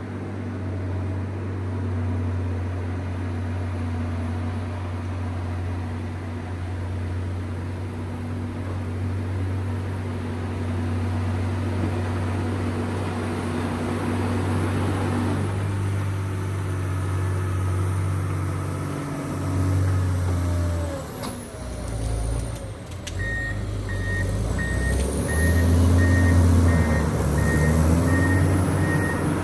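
John Deere 670 GP motor grader's diesel engine running steadily under load; its note shifts about two-thirds of the way through. In the last few seconds an evenly repeating reversing alarm beeps about twice a second over the engine as the grader backs up.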